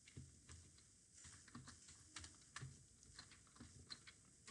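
Faint typing on a computer keyboard: quick, irregular keystrokes, several a second.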